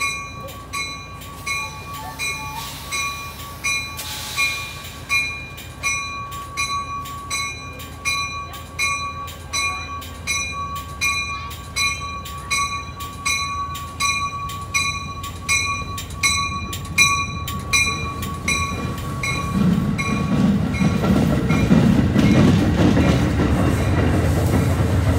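A departing Shore Line East commuter train's bell rings steadily, about one and a half strikes a second. Near the end the bell stops and the low rumble of the train's diesel locomotive and rolling cars grows louder as it pulls away.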